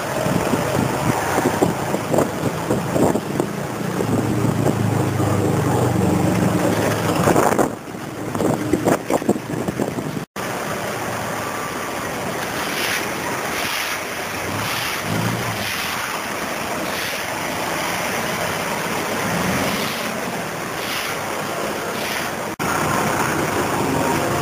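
Wind rushing across a handheld camera's microphone over street noise, a steady roar with no distinct events. It breaks off abruptly twice, about ten seconds in and near the end.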